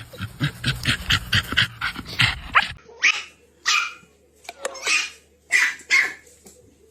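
A dog barking: a quick run of short sounds for about the first three seconds, then about five separate barks.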